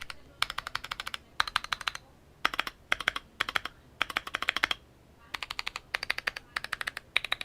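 Clicky mechanical keyboard switches typed on a Keychron Q1 with a polycarbonate plate: rapid runs of sharp clicking keystrokes in short bursts of about eight to ten presses, separated by brief pauses.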